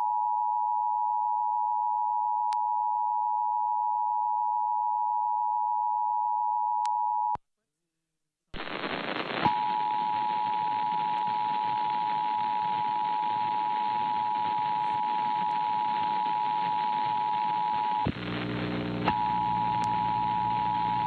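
Emergency Alert System two-tone attention signal: two steady electronic tones sounding together, cutting off abruptly after about seven seconds. After a second of silence, a loud hiss starts with a single steady beep tone over it, joined by a low buzz about two-thirds of the way through.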